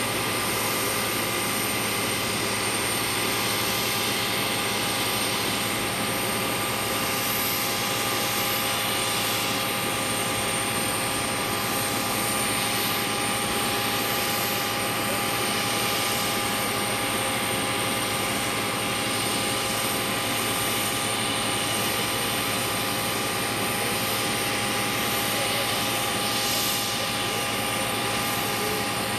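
Parked Boeing 737 airliner's auxiliary power unit running: a steady turbine whine with several high tones over an even rush.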